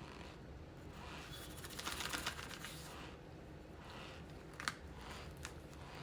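A brief crinkling, crackling sound about two seconds in, followed by a few sharp clicks.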